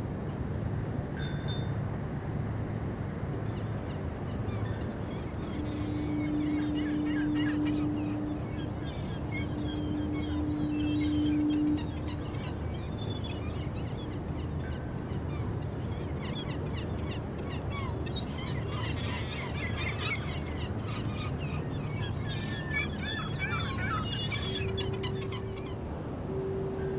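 Added harbour ambience: many birds chirping and calling over a steady low rumble. A low steady horn tone sounds in two long blasts from about six to twelve seconds in, and again near the end.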